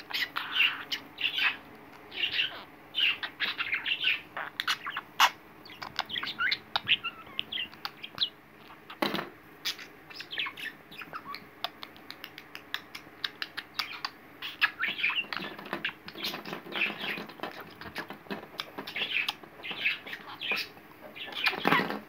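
Budgerigar chattering in many quick, short chirps, with sharp clicks as its beak pecks at a metal claw hair clip; one click about nine seconds in is the loudest.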